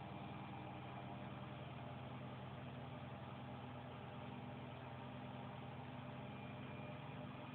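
Steady low electrical hum with a faint even hiss, typical of an aquarium's running filter pump.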